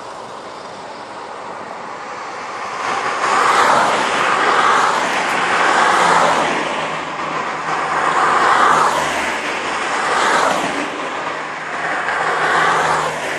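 Cars passing close by one after another on a multi-lane road, the tyre and engine noise swelling and fading about five times after a quieter first few seconds.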